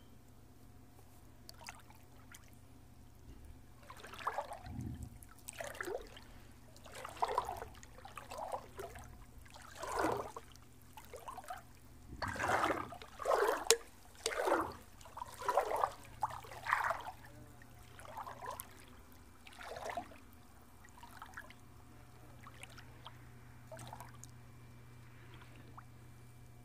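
Shallow water splashing and trickling in a series of short, irregular splashes, about one a second, loudest around the middle, then dying away.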